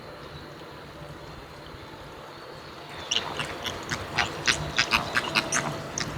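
A flock of flamingos calling: a quick run of short, goose-like honks that starts about halfway through and comes several a second.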